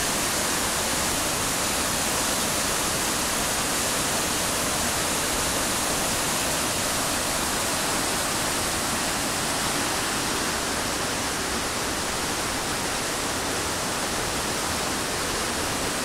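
Mountain waterfall and its torrent rushing over rocks: a steady, even rush of water with no breaks. The stream is in high flow, which is put down to rain in the mountains.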